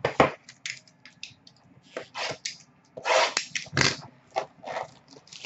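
A cardboard trading-card hobby box being handled: lifted, set down on a glass counter and worked at by hand, giving a string of sharp taps and clicks with short scraping rustles of cardboard.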